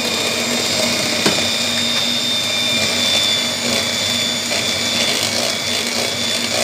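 Electric hand mixer running steadily at constant speed, its twin beaters whisking cocoa powder into batter in a stainless steel bowl, with one sharp click about a second in.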